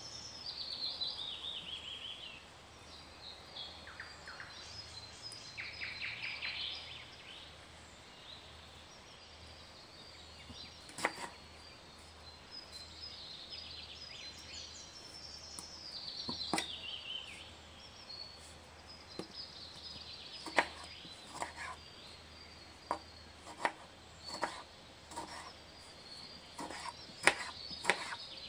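Kitchen knife cutting through a tomato onto a plastic cutting board: a scattered string of sharp taps, mostly in the second half. Behind it a songbird sings a falling trill, once at the start and again about halfway through.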